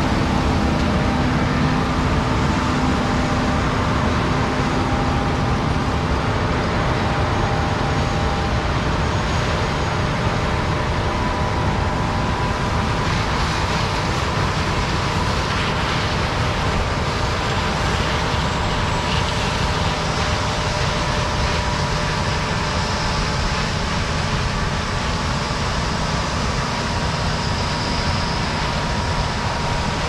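Steady engine and machinery drone of a John Deere S680 combine harvesting soybeans and a John Deere 8310R tractor pulling a grain cart alongside, with a few faint steady tones over it. The drone eases slightly as the machines move away.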